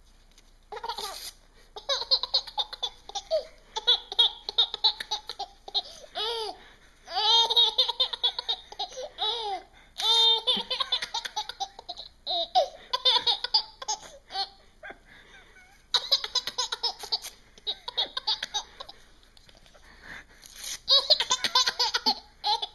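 Baby laughing hysterically in repeated fits with short breaks between them, set off by paper being torn in front of him.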